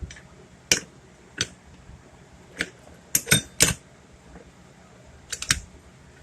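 Metal hand tools clinking and knocking against small-engine clutch parts: separate sharp clicks, a quick cluster of several in the middle, some with a short metallic ring.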